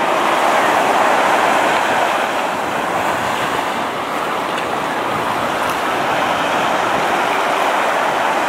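Small Atlantic waves breaking and washing up onto a sandy beach, a steady rush of surf.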